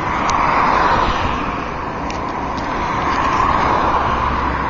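A car driving, with steady road and engine noise heard from inside the car and a few faint ticks.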